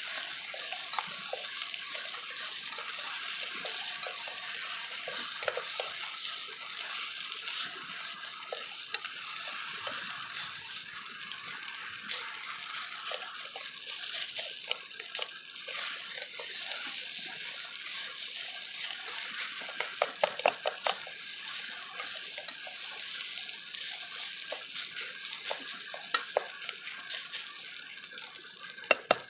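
Wooden spatula stirring and scraping fried rice around a steel camping pot, with light clicks against the metal, over a steady hiss.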